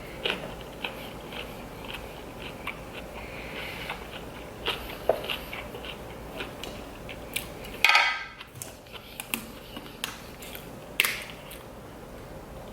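A person chewing and biting crunchy food, with irregular crunches and wet mouth clicks, a louder crunch about eight seconds in and a sharp click about three seconds later.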